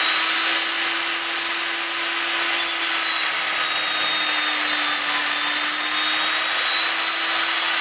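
Evolution Rage 5-S table saw's 1800-watt motor running at full speed as the blade cuts a 3x3 wooden fence post, its pitch sagging slightly under load about five seconds in and then recovering.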